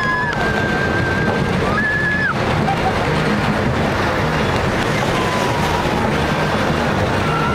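Wind rushing over the microphone and a roller coaster train running at speed along its steel track, a steady loud rumble throughout. A few high drawn-out tones sound over it in the first two seconds.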